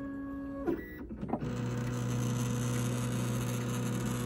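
MakerBot Replicator+ 3D printer's motors whining steadily as the print head and build plate move into position at the start of a print, with two short knocks about a second in. It then settles into a steady hum as the extruder begins heating.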